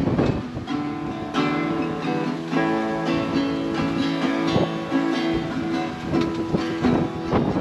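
Acoustic guitar being strummed, with a few firm strums and the chords ringing on between them.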